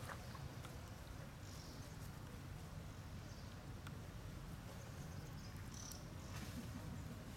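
Faint outdoor ambience: insects chirping in a few short high patches over a low steady rumble.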